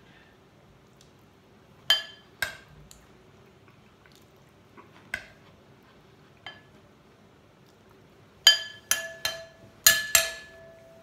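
Metal spoon clinking against a ceramic bowl: a few scattered single clinks, then a quick run of about six in the last few seconds, each ringing briefly.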